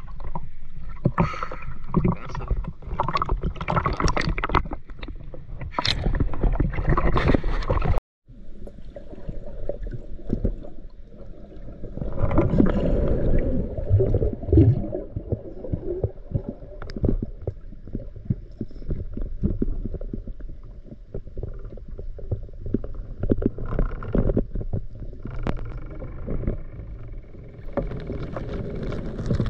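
Water sloshing and bubbling around a diver's camera, dense and splashy at first. It breaks off abruptly just after eight seconds, then goes on as a muffled, lower water rumble with irregular surges.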